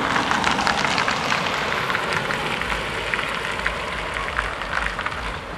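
Road traffic noise, with a car driving past over the crossing and a low engine rumble that sets in about halfway through.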